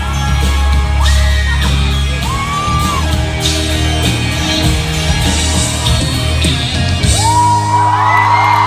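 Live pop-rock band playing loudly, with fans screaming over the music; a long high scream rises and holds near the end.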